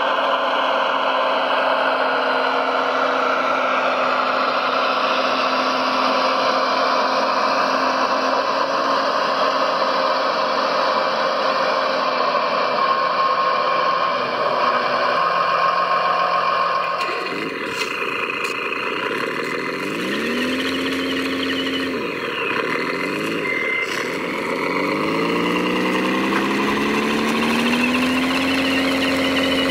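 Engine sound of radio-controlled construction machines: a steady engine note, then an abrupt change about two-thirds of the way in, after which the pitch rises and levels off again and again as the engines are revved.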